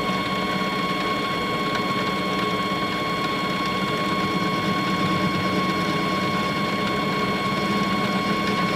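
Metal lathe running under power with a steady, constant whine while a threading tool cuts internal threads in the bore of a thread protector.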